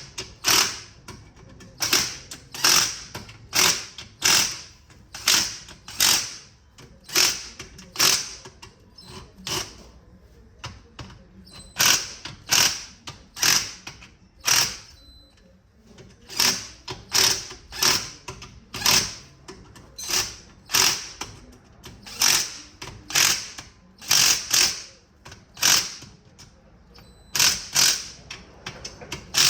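Hand ratchet clicking in repeated short back-strokes, about one to two a second with brief pauses between runs, as bolts are run down snug, not yet torqued to spec.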